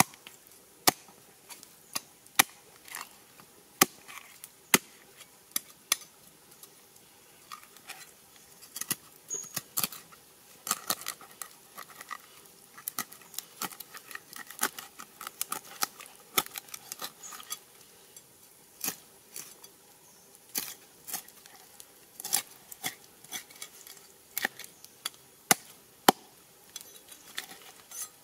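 A large knife working a whole red fish on a wooden board: irregular sharp taps and clicks of the blade against the fish and board, with a busier stretch of scraping and slicing in the middle as the fish is cut open and gutted.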